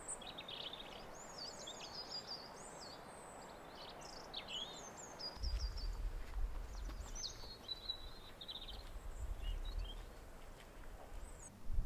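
Small songbirds chirping and twittering in quick, high, gliding calls throughout. A low rumble joins about halfway through.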